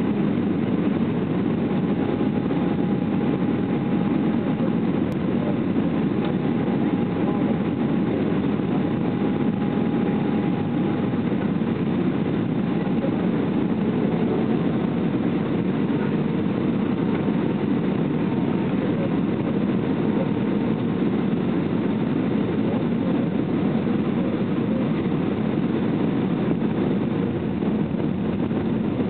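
Steady cabin noise inside an Airbus A320 airliner on descent: the even rumble of engines and airflow, with a faint steady whine that shifts lower about halfway through.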